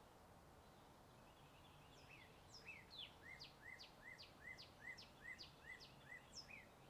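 A songbird singing a rapid, even series of about a dozen repeated notes, roughly three a second. Each note is a sharp whistle sweeping downward in pitch. The song starts about two seconds in and stops just before the end, over a faint steady low hum.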